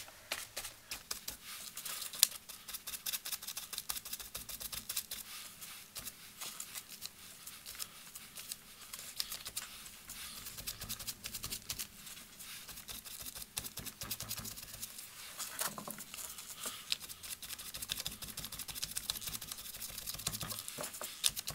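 A sponge loaded with ink dabbed rapidly on cardstock paper: a faint, quick run of soft pats and light rubs.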